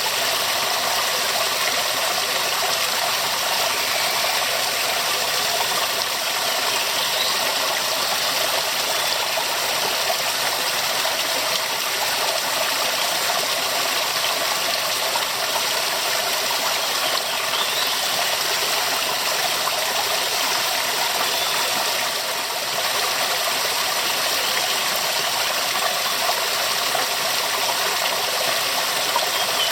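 Waterfall: water falling and rushing in a steady, even roar of spray and splashing, heavy in the high end and unchanging throughout.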